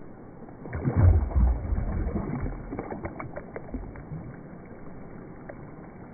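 Shallow water splashing and sloshing as a released peacock bass kicks away from the bank. It comes as a burst of splashes with a deep churn about a second in, then dies away over the next few seconds.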